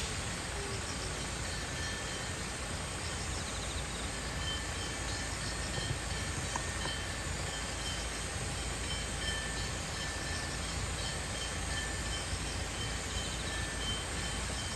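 Steady outdoor ambience: a low rumble under faint, repeated high chirping of insects.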